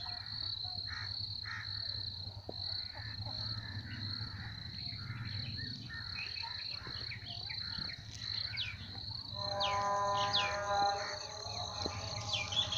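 Insects chirping steadily in a high, rapidly pulsing trill, with scattered short bird calls. About ten seconds in, music with several held notes comes in over it.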